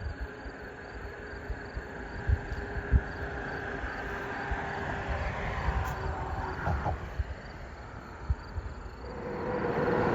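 Road traffic on a bridge, with a vehicle approaching and growing louder over the last second or so. Under it run a faint, steady, high insect trill and scattered low thumps.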